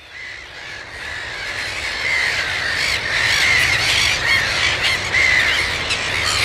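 A colony of black-headed gulls calling, many harsh overlapping calls at once, fading in over the first two seconds. A low steady rumble runs underneath.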